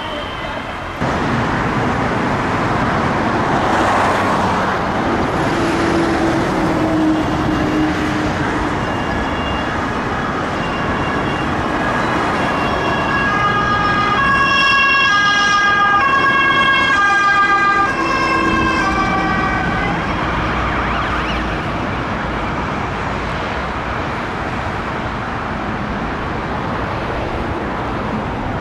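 Road traffic noise, with an ambulance siren sounding in a high-low two-tone pattern through the middle, switching pitch about every half second, then stopping and leaving only traffic noise.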